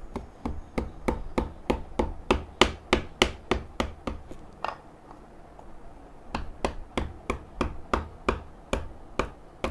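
Fine-toothed hand saw cutting into a wooden scoop blank in quick short strokes, about three a second, with a brief pause a little after the middle.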